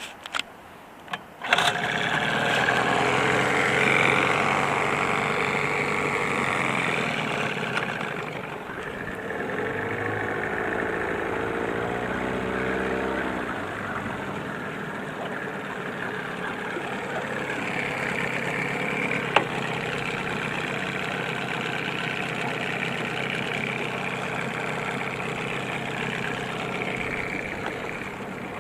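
1990 Evinrude 15 HP two-stroke outboard motor starting by pull cord, catching about a second and a half in and then running steadily, with its freshly cleaned carburetor. Its engine speed shifts briefly partway through.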